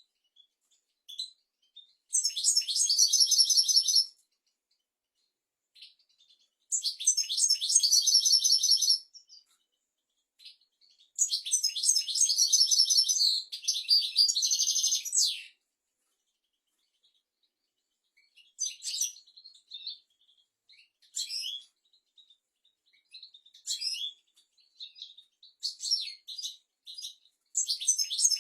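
European goldfinch singing: three long phrases of rapid, high twittering trills and chirps, the third the longest. Then come scattered short call notes, and a new song phrase starts near the end.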